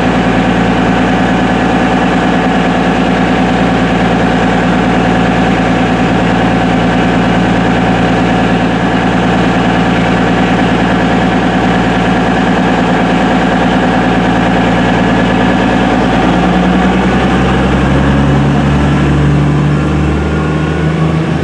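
Diesel passenger train's engines idling loudly at close range. From about sixteen seconds in the engine note rises in pitch as power is applied.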